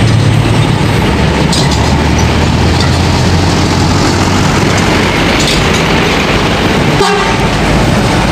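Diesel engine of a Mercedes-Benz intercity coach running loud with a steady low drone as the bus pulls out and passes close by, with a short clack about seven seconds in.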